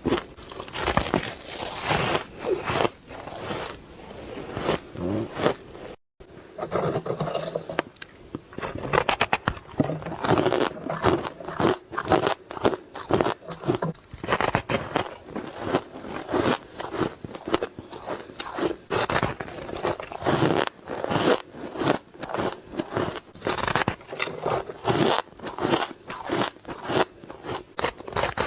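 Ice being bitten and chewed close to the microphone: dense, irregular crunching and crackling with many sharp cracks a second. It breaks off for a split second about six seconds in, then carries on.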